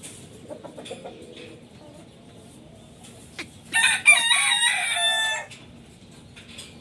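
A rooster crowing once, a single cock-a-doodle-doo lasting about a second and a half just past the middle, with its pitch stepping up and down.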